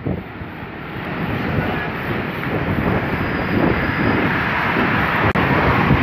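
Gusting windstorm wind blowing over the microphone while cycling, a steady noisy rush that swells and eases, with motor scooter and car traffic on the road underneath.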